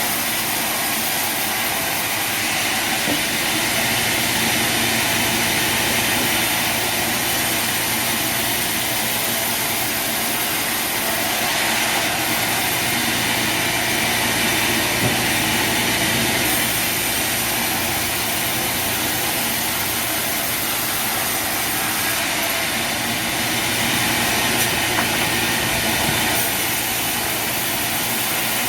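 Machinery running steadily: a continuous, even mechanical noise with a low hum and no pauses.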